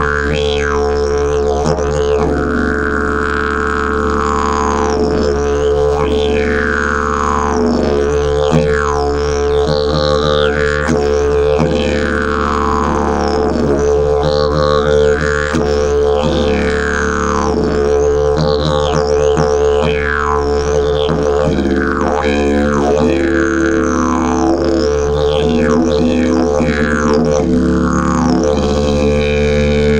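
Fibreglass slide didgeridoo played as a continuous low drone, with repeated gliding sweeps in its overtones and a shift in its lower notes every few seconds.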